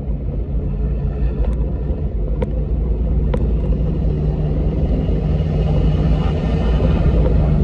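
Car engine and road noise heard from inside the cabin while driving, a steady low rumble that grows gradually louder, with a few light ticks in the first half.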